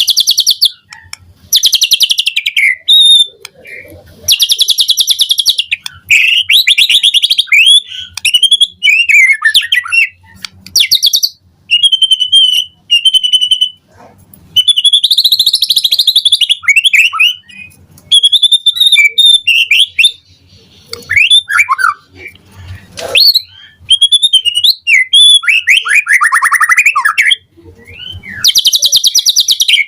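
White-rumped shama (murai batu) singing in full, continuous song. Phrases of clear whistled glides alternate with fast, harsh, rattling trills, with short breaks between phrases.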